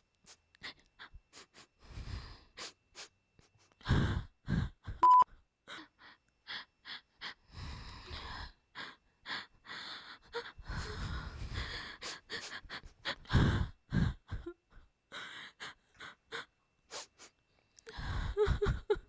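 A young woman's breathy gasps in short, irregular bursts, with one brief high beep about five seconds in.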